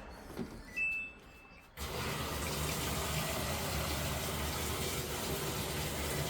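A short electronic beep from the Samsung washing machine's control panel, then about two seconds in water suddenly starts rushing steadily into the machine through its water inlet valve: the machine is filling again, a sign that the 4E water-supply fault is cured.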